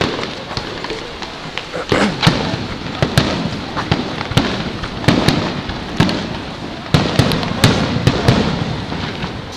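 Aerial fireworks shells bursting over a seaside display: many sharp bangs in quick, irregular succession, the loudest coming from about two seconds in, with a rumble running on between them.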